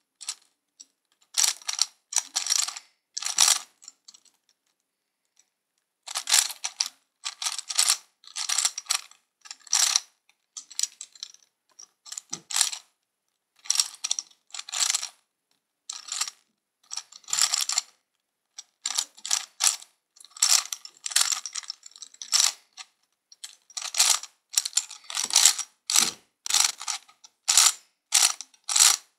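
Plastic Gear Cube puzzle being turned by hand in quick bursts of moves, its interlocking gears clicking and ratcheting, with short pauses between runs and a longer pause about four seconds in.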